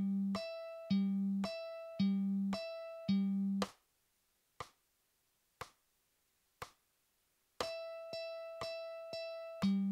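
Mandolin plucking slow, even eighth notes on open strings, alternating between the open E and the open G string about twice a second, with a metronome click. A little under four seconds in, the notes stop for a bar's rest, leaving only the click once a second three times. Near eight seconds the picking resumes with a run of repeated open E notes, then open G notes.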